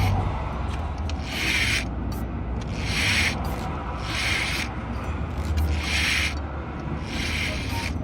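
Rhythmic hand rubbing or scraping strokes, about one every second and a half, over a low steady hum.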